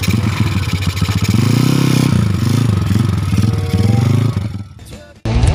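Small motorcycle engine revving as the bike pulls away, its pitch rising and falling through the gears, then dying away about four and a half seconds in. Rock music cuts in just before the end.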